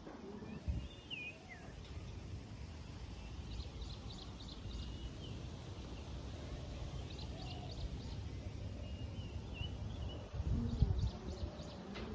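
Birds chirping with short, high notes, some of them sliding calls, over a steady low outdoor rumble; a brief cluster of low knocks comes about ten and a half seconds in.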